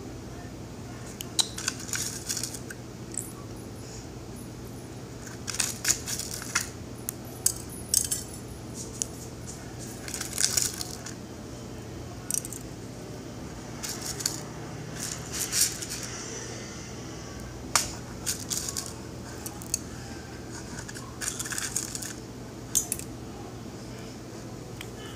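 Scattered light clicks, taps and rustles of hands handling food in a metal muffin tin, over a steady low hum.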